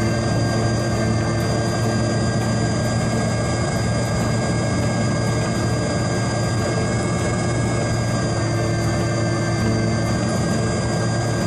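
Electric motor and propeller of a radio-controlled FMS Pitts biplane in flight, picked up by a camera riding on the plane: a steady whine with several held tones over a constant rush of wind.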